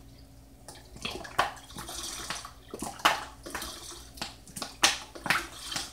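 Bottled ReaLemon lemon juice glugging from the bottle into a pitcher of sugar water, in a run of uneven gushes as the bottle is emptied past halfway.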